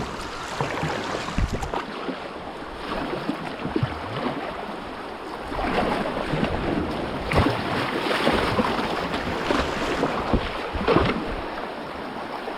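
Whitewater rushing around a kayak, with several sharper splashes through it.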